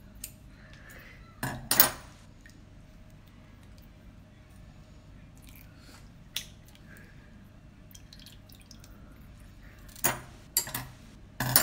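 A raw geoduck being handled and its shell pried apart, giving a few short sharp wet clicks and squelches, loudest about a second and a half in and again near the end, with its juice dripping onto the plate.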